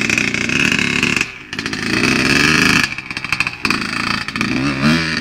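Motocross bike engine revving, the throttle opening and closing. The revs drop sharply about a second in and again near the three-second mark, then climb quickly near the end.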